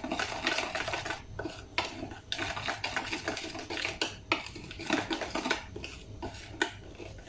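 Cake batter being stirred by hand in a bowl, a utensil scraping and clinking against the bowl in uneven strokes as flour is mixed into beaten egg, sugar and oil.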